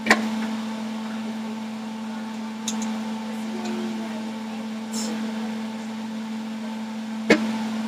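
Steady electric appliance hum, one unchanging low tone, with a sharp click just after the start and another near the end.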